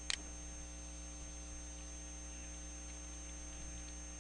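Steady electrical mains hum picked up by the recording microphone, with a sharp double click, a mouse click, just after the start.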